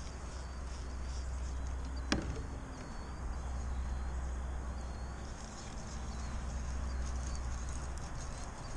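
Steady low rumble of wind and handling noise on the microphone while a baitcasting rod and reel are worked from a kayak, with one sharp snap about two seconds in.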